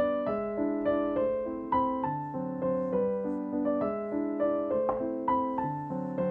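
Background piano music, notes played one after another a few times a second over held lower notes, each fading after it is struck.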